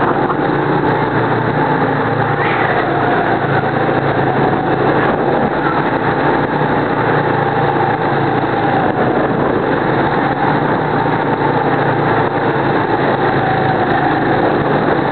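Go-kart engine running at racing speed, heard from on board the kart: a steady, loud drone whose note barely changes.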